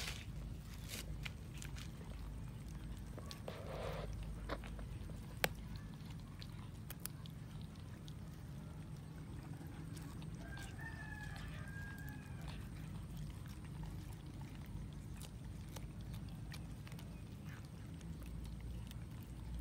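Several cats chewing and tearing at a cooked whole chicken: scattered sharp clicks and smacks over a steady low rumble, with one short pitched animal call about ten seconds in.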